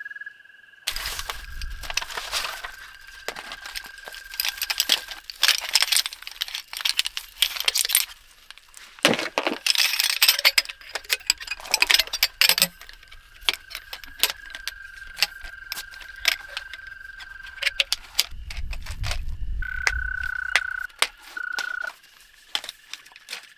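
Aluminium frame poles of a Nemo Moonlite Elite reclining backpacking chair clicking and clinking as they are snapped together and fitted to the seat, many quick metallic rattles. A thin steady high tone runs behind them.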